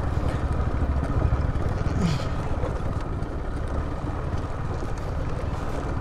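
Wind buffeting the microphone: a steady, uneven low rumble.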